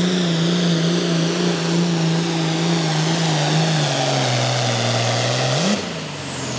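Turbocharged 466-cubic-inch diesel engine of an International 7250 Pro Farm pulling tractor running hard under full load as it drags the sled, its pitch dropping about four seconds in as it lugs down. Near the end it revs briefly and the throttle comes off, and a high turbo whine slides down as the engine falls back.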